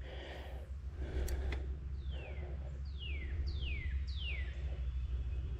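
A bird whistling four clear notes, each sliding quickly down in pitch, in the middle of the stretch, over a steady low rumble.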